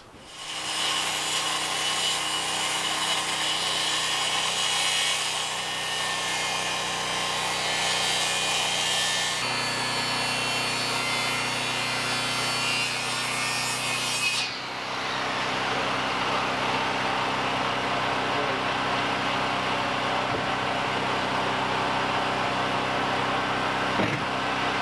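A power tool running steadily and cutting into pine wood, with an even rasping noise over a motor hum. The sound changes abruptly twice, about nine and fourteen seconds in.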